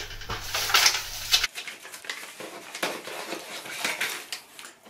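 Cardboard packaging rustling and scraping as small boxes are lifted out of a cardboard mailer and handled, with irregular light taps and knocks of the boxes on the tabletop.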